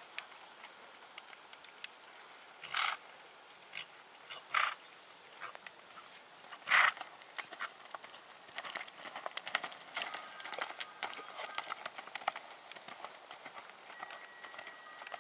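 Hoofbeats of a horse moving at speed over loose arena dirt, a quick run of soft thuds that grows denser and louder in the second half. Three brief, louder rushes of noise come in the first half, the loudest about seven seconds in.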